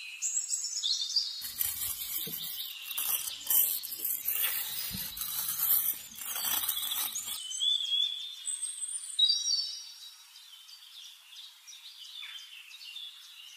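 Birds chirping and calling, with scraping in sand from about a second and a half in until about seven seconds in.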